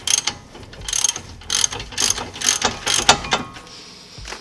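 Ratchet wrench clicking in short repeated bursts as a 19 mm brake caliper bracket bolt is backed out after breaking loose.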